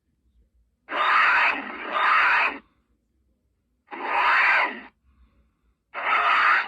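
Custom creature sound effects: three harsh, breathy vocal calls, each about a second long with silence between, the first one doubled.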